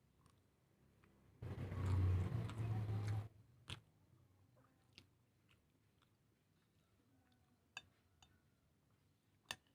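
Close-miked eating sounds: a loud, noisy stretch of chewing lasting about two seconds, starting about a second and a half in, then a few sharp, separate clicks spread through the rest.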